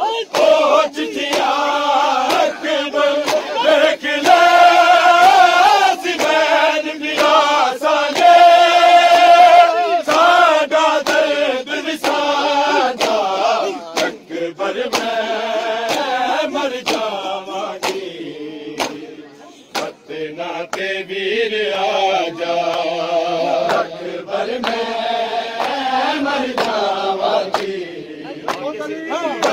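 Men chanting a Shia mourning lament (nauha) together, with sharp chest-beating slaps (matam) keeping a regular beat under the chant. The chant dips briefly about two-thirds of the way in.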